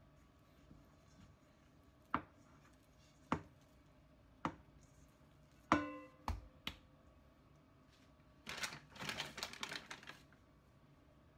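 Dough being handled in a stainless steel mixing bowl: three sharp knocks about a second apart, then the bowl clangs and rings briefly as the dough is tipped out, landing with a soft thud on a plastic cutting board. Near the end, a couple of seconds of scratchy rustling.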